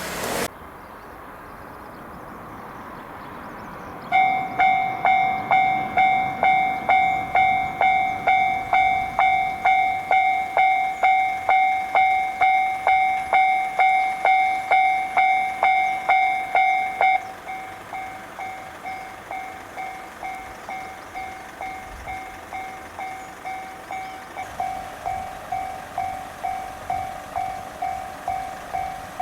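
Japanese railway level-crossing warning bell ringing, a regular electronic ding about twice a second, warning of an approaching train. It starts a few seconds in, drops to a lower volume about two-thirds of the way through, and grows slightly louder again near the end.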